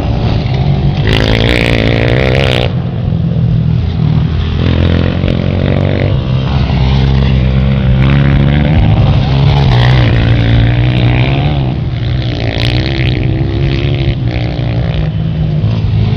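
Dirt bike engine running hard while ridden, its pitch rising and falling as the throttle opens and closes, with several revving surges.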